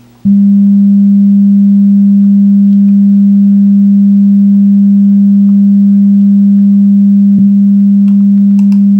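200 Hz square-wave test tone played through a 3D-printed desktop subwoofer with a 5¼-inch Tang Band driver: a loud, steady low hum that starts a fraction of a second in, with a faint overtone above it. A brief click about seven and a half seconds in.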